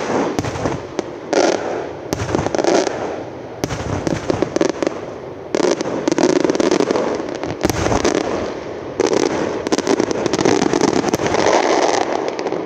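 Maltese festa aerial fireworks (murtali) bursting overhead in a rapid barrage: sharp bangs several times a second over nearly continuous crackling.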